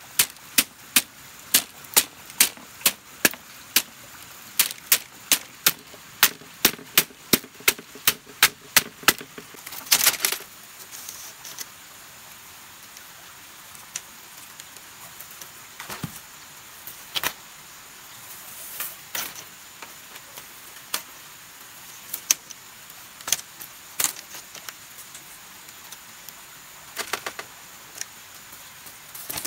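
Sharp knocks in a steady run of two to three a second, slowing about ten seconds in to scattered single knocks a second or two apart.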